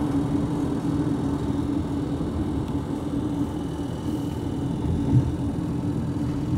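Cabin noise of a moving car: a steady low rumble of engine and tyres on the road, with a faint steady hum and a brief thump about five seconds in.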